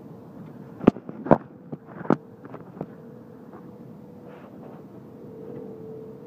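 The phone is knocked and shifted against a hard surface: a few sharp knocks between about one and three seconds in, the loudest first, over steady background noise with a faint steady hum.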